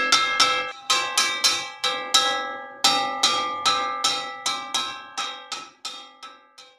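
Metal wok struck repeatedly, about three ringing clangs a second, each tone dying away before the next, with a short pause near the middle. The strikes grow softer toward the end.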